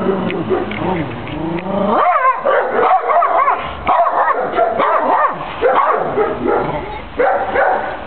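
Rottweiler on a leash barking and yelping in a rapid run of short, high-pitched barks, two or three a second, from about two seconds in.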